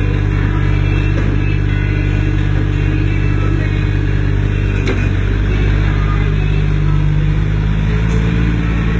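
Komatsu PC10-5 mini excavator's diesel engine running steadily, its low tone shifting slightly near the end.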